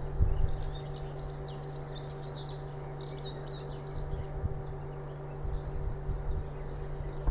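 Steady hum of a woodworking production machine running, with small birds chirping over it and a few low rumbles.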